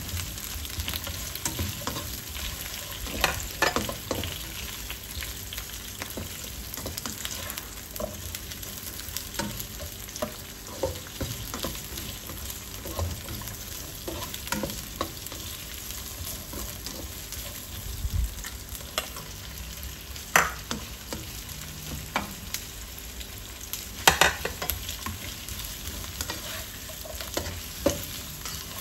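Sliced onion and chopped garlic sizzling in oil in a nonstick wok while a slotted spatula stirs and scrapes them, a steady frying hiss broken by many short scrapes. A few sharper knocks of the spatula on the pan stand out, the loudest one late on.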